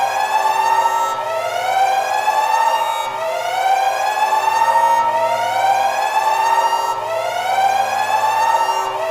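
Siren wailing in a repeating cycle: each call rises in pitch over about a second, holds high, then drops abruptly and starts rising again, about every two seconds.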